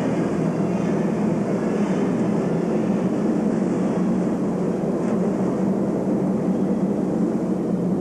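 Tour boat's engine running steadily, a constant low drone heard from on board.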